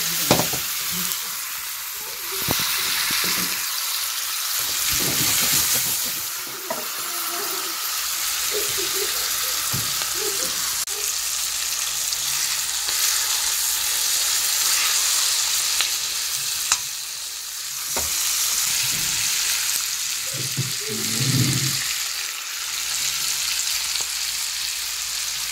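Marinated chicken pieces sizzling in melted butter in a stainless steel pan, a steady frying hiss as water cooks out of the chicken. A few sharp clicks break in, about two seconds in and twice more around two-thirds of the way through.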